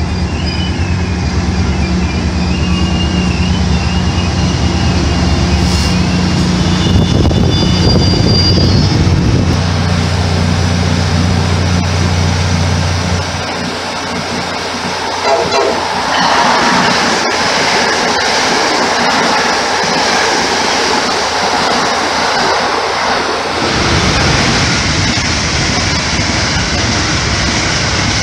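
MARC commuter train passing close at speed: a steady rush and rumble of the coaches on the rails. A strong low hum runs through the first half and drops away about halfway, and faint thin high whines come and go early on.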